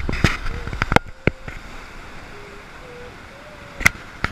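Surf and wind rushing on a rocky shore, a steady hiss, broken by several sharp knocks in the first second or so and another loud knock near the end.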